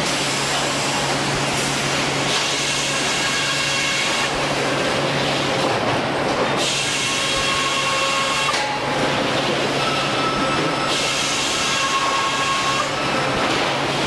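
Sawmill saws and conveyors running steadily, with three surges of a higher hissing whine, each about two seconds long, as the saw cuts through wood.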